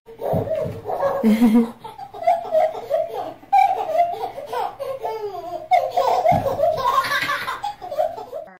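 A baby laughing over and over in short bursts of giggles.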